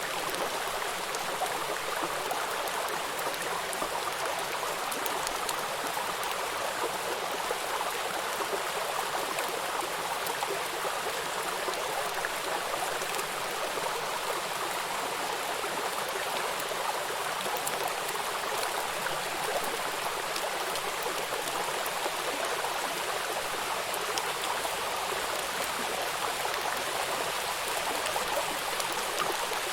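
Steady rain falling, a dense even hiss with scattered faint drop ticks.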